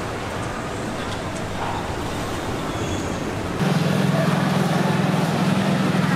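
Background market noise, then about halfway through a loud, steady low motor hum starts abruptly and continues.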